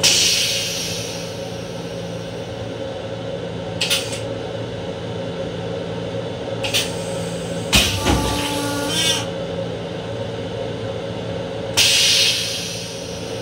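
Flush cycle of an LIRR M7 railcar toilet: a rush of hiss fading away, a few clicks, then about eight seconds in a clunk and a short whine, and another hiss near the end. Under it runs the steady hum of the railcar.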